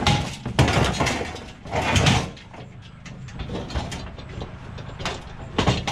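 Scrap metal being handled: irregular clanks, rattles and scraping in a few clusters, with quieter handling noise between.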